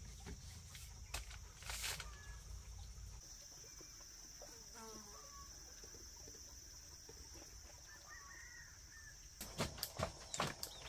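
Farmyard ambience: chickens clucking now and then over a steady high whine, with a few sharp knocks near the end.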